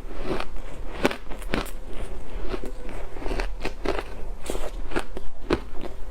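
A person biting and chewing ice cake, a block of pressed ice. Sharp, irregular crunches come about twice a second.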